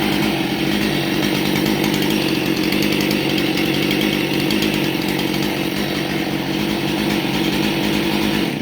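Husqvarna 272XP 72 cc two-stroke chainsaw engine running steadily at an even speed.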